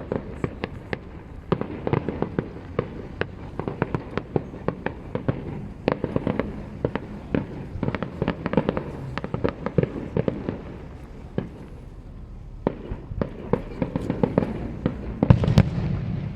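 Professional fireworks display: many shell bursts and sharp reports in quick succession, with the loudest, deepest burst about fifteen seconds in.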